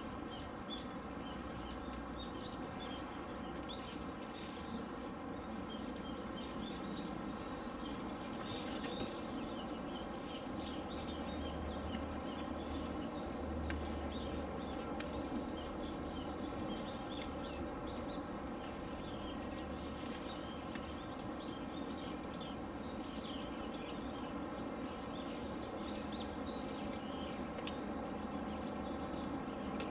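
Small birds chirping in many short, scattered calls over a steady background hum.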